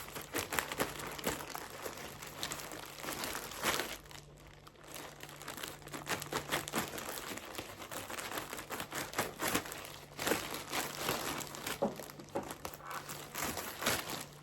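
Parcel packaging crinkling and rustling in irregular crackles as it is cut open with scissors and unwrapped.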